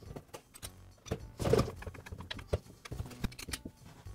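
Scattered small clicks and knocks of a hand screwdriver working the screws that join the drill's housing halves and of the drill body being handled and turned on a metal workbench, with a louder knock about one and a half seconds in.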